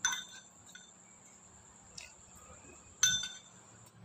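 A metal fork clinking against the bowl as noodles are scooped: a sharp ringing clink at the start and another about three seconds in, with a lighter tick between them. A faint steady high whine runs underneath.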